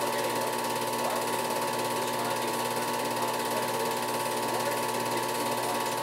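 Film projector running: a steady, rapid mechanical clatter of the film transport, with a constant whine underneath.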